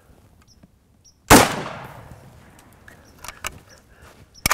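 A single shot from an H&K 770 semi-automatic rifle in .308 Winchester, one sharp crack about a second in that echoes and fades over about a second. A few light clicks follow, with a sharper cluster near the end.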